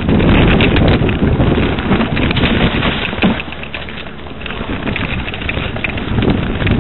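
Wind buffeting the microphone of a camera on a mountain bike riding fast down a rough dirt trail, with a steady run of knocks and rattles from the bike over the ground. It eases for about a second around the middle, then builds again.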